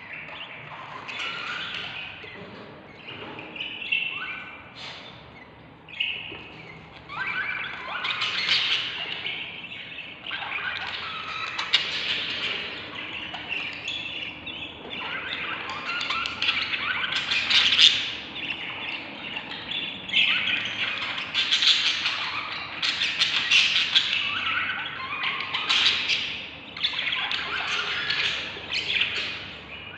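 Budgerigar chicks calling to be fed: bursts of begging calls, one after another, growing busier and louder in the second half.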